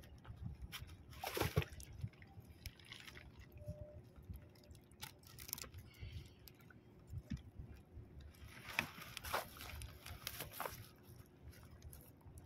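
Water sloshing and splashing around a small inflatable boat, with scattered knocks and rustles of gear being handled. Louder rustling bursts come about a second and a half in and again around nine to ten seconds in.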